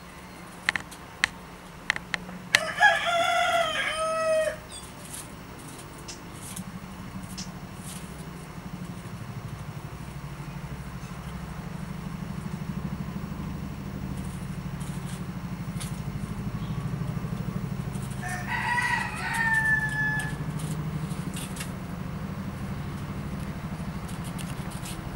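A bird gives a loud, drawn-out call a few seconds in, about two seconds long and falling in pitch in steps. A second, higher call about as long comes about three-quarters of the way through. A few sharp clicks come just before the first call, all over a steady low hum.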